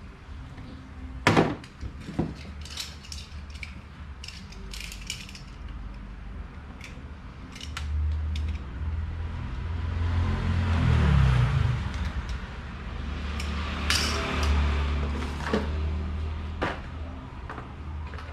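Clicks and knocks of electric-fan parts being handled, then a steady low motor hum sets in about eight seconds in, with a rushing swell around ten to twelve seconds.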